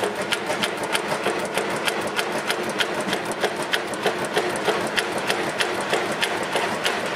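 1929 Fairbanks Morse 5000 cubic inch stationary engine running steadily, its valve gear ticking in an even rhythm of about four to five sharp ticks a second over the engine's hum.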